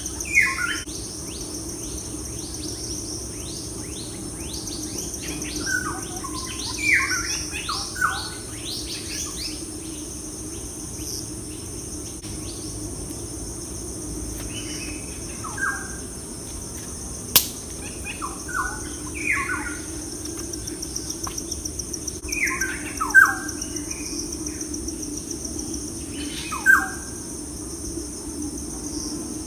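Birds chirping in short, falling calls that come in clusters every few seconds, over a steady high insect drone. A single sharp click sounds about midway through.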